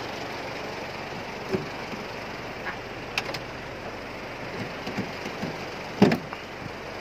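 A Ford's engine running steadily, heard from inside the cabin, with scattered knocks and thumps, the loudest about six seconds in.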